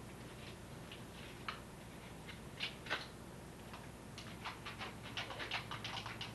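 Wrapping paper crinkling and crackling in quick clicks, scattered at first and growing denser and louder about four seconds in, over a low steady hum.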